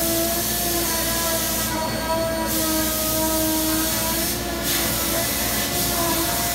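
Robotic CNC router spindle whining at a steady pitch as it trims a thermoformed plastic part. Spells of hissing come and go three times.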